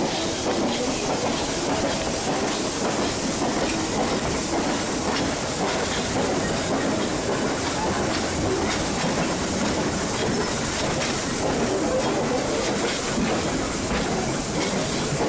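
Nilgiri Mountain Railway metre-gauge train running along the track: a steady rumble and hiss with scattered faint clicks from the wheels.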